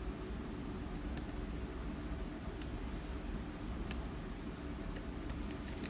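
Faint, sparse, irregular metallic clicks of a lock pick working the pins inside a Mul-T-Lock MT5 cylinder.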